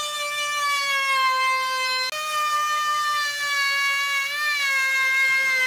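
Electric trim router running at high speed while its bit cuts the edge of a round wooden tabletop: a steady high whine that sags slowly in pitch under the cut's load. It drops out for an instant about two seconds in and wavers briefly in pitch near the end.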